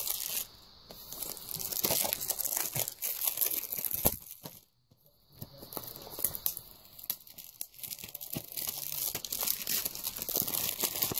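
Plastic shrink-wrap on a Blu-ray case being picked at, torn and crinkled by hand, with a brief pause about four and a half seconds in.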